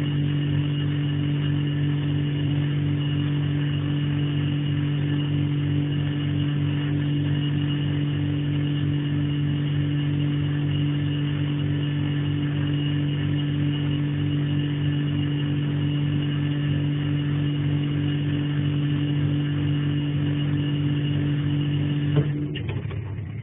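Refrigerator compressor running with a loud, steady hum, then cutting out about a second before the end.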